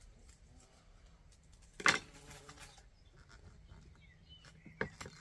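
A single animal call, like a bleat, about two seconds in, with a few faint clicks near the end.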